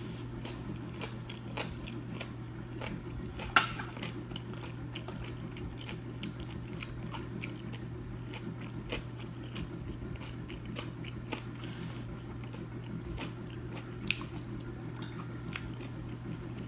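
Close-up chewing and crunching of crispy breaded fried food, fried green tomatoes and fried shrimp, with many small crisp crunches and a louder bite about 3.5 seconds in and another near the end. A steady low hum runs underneath.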